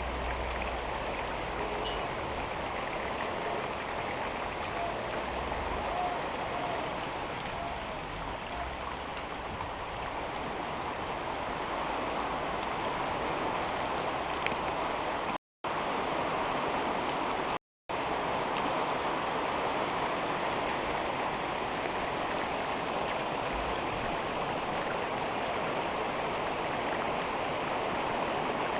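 Heavy rain pouring down, a steady dense hiss of water. The sound cuts out completely twice, briefly, about halfway through.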